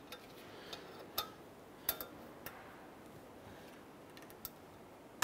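A handful of small, sharp metallic clicks at irregular intervals: a steel cotter pin and needle-nose pliers tapping against a ball joint's castle nut and stud as the pin is worked into the hole.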